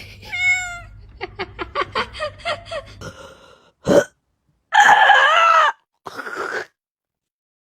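Domestic cats meowing in a run of short cuts: one meow, then a quick string of short chirping meows, about five a second, then a short loud sound, a longer loud meow and a shorter call. Everything cuts off abruptly and dead silence follows.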